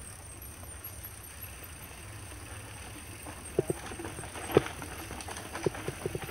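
Mountain bike rolling along a rough dirt trail: a steady low rumble, then from about three and a half seconds in, irregular sharp knocks and rattles from the bike jolting over bumps, coming thicker near the end.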